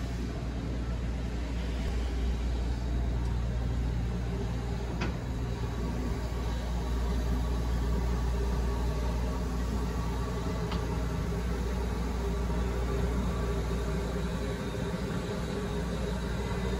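Class 31 diesel locomotive's English Electric V12 engine idling steadily with a low, even rumble. Two sharp metallic clicks come about five and eleven seconds in.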